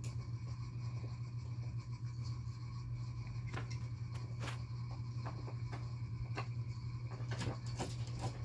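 Soft scattered clicks and rustles of a kitten pawing and mouthing at a lying husky, most of them in the second half, over a steady low hum.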